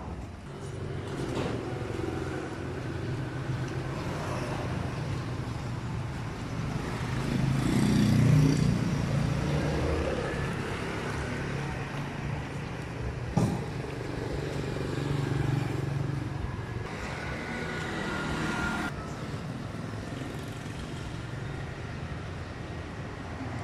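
Street traffic: motor vehicles running and passing, one swelling loudest about a third of the way in. A single sharp knock comes just past halfway.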